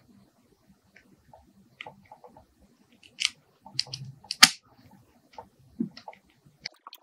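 Scattered small clicks and taps of hands handling laptop parts while a RAM module is fitted, with two sharper clicks a little after three seconds and about four and a half seconds in.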